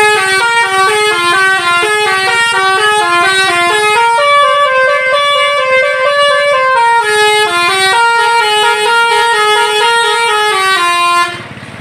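Indonesian bus telolet horn, a set of air-horn trumpets switched in sequence, playing a long, fast, winding melody of stepped notes. It is loud and stops abruptly near the end.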